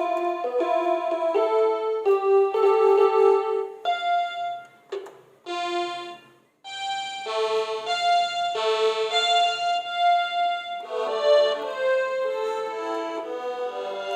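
Children's toy electronic keyboard playing a string of held notes one after another, breaking off briefly about six seconds in and then carrying on.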